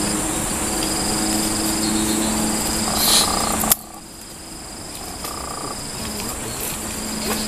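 Steady high-pitched insect buzzing over a low steady hum. The whole background drops suddenly about halfway through.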